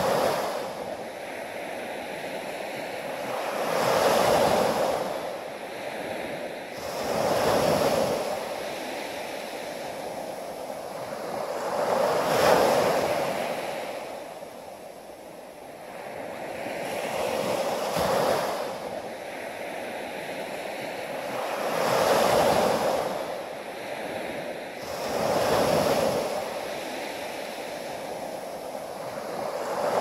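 Small waves breaking and washing up a sandy beach, the surf swelling and fading about every four seconds.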